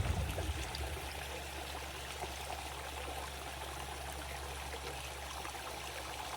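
Backyard pitless waterfall stream running: a steady flow of water over rocks. The tail of music fades out about the first second in.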